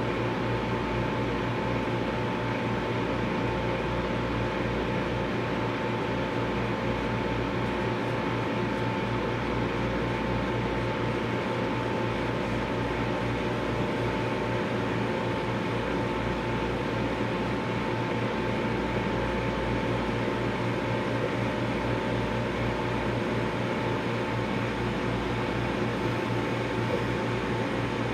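Microwave oven running with a steady hum and a low drone, heating a bowl of corn flakes.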